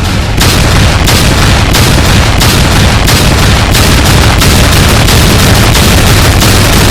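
A recording of a person wheezing, degraded by repeated re-exporting into loud, clipped, harsh digital noise with no recognisable voice left. It pulses roughly once or twice a second and gets louder about half a second in.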